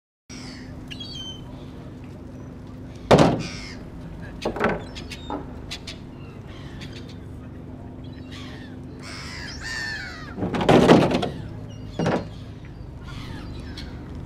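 Gulls calling, with about four loud, close calls among fainter, higher calls from farther off, over a steady low hum.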